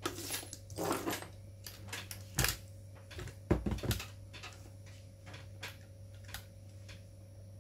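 Plastic clicks and knocks as a radio-controlled scale truck with 3D-printed suspension parts is handled and turned over on a tabletop. The heaviest knocks come about two and a half and three and a half seconds in, with lighter clicks after. A steady low hum runs underneath.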